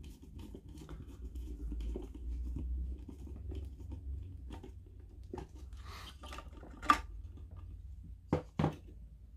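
Close handling noise of a plastic lamp fitting as its screw terminal block is worked with a small screwdriver: many small clicks, scrapes and rubs, with a sharper click about seven seconds in and two short knocks shortly before the end.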